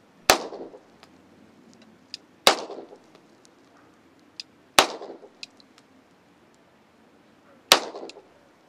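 Semi-automatic pistol fired four single shots, about two to three seconds apart, each a sharp crack with a short echo trailing off.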